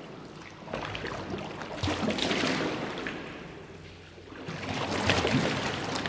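Water sloshing in a sewer, splashing in uneven surges with a lull about four seconds in before it swells again.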